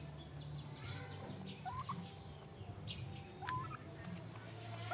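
Domestic turkeys calling while they peck at feed: a few short rising calls about a second and a half apart, with faint high chirps in the first second or so.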